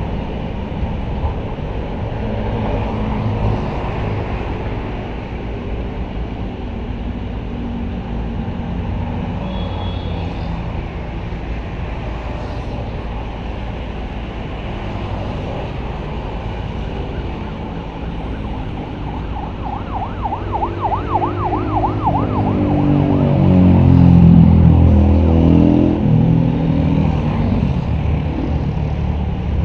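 Diesel engine of a small backhoe running steadily, revving louder with shifting pitch about three quarters of the way through. A fast warbling siren is heard briefly just before that.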